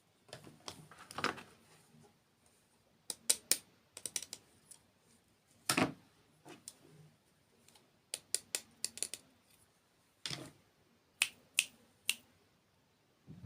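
Close-miked ASMR eating sounds: crisp bites and crunches of dessert with sharp mouth clicks, coming in small irregular clusters.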